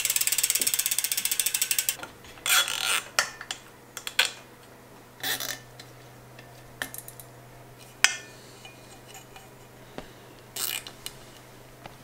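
Bicycle freehub ratchet clicking rapidly as the wheel spins freely, fading out about two seconds in. Then a few scattered knocks and rustles of the bike being handled.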